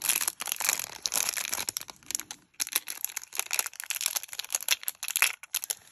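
Small clear plastic bag crinkling and crackling irregularly as fingers handle and open it.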